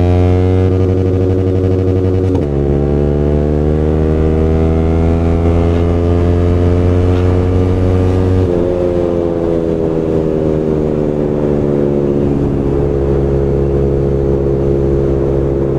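Yamaha R15M's single-cylinder engine through a loud aftermarket full-system exhaust, accelerating hard through the gears. The pitch climbs, drops sharply at an upshift about two and a half seconds in, and climbs again. A second shift comes about eight and a half seconds in, after which the pitch slowly falls as the throttle eases.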